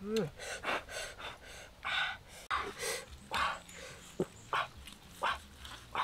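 Machete chopping cooked beef ribs on a wooden stump: irregular sharp chops, about one or two a second. A puppy gives a short cry right at the start.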